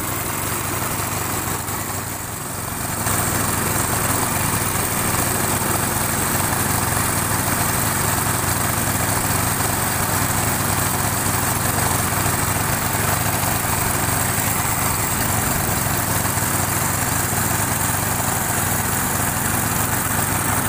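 Honda petrol engine of a small wooden river boat running steadily under way. It dips briefly about two seconds in, then picks up and runs a little louder.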